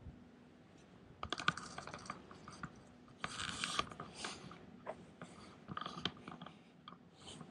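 Handling noise from a handheld camera carried while walking: irregular soft clicks and rustles, starting about a second in, over a faint steady hum.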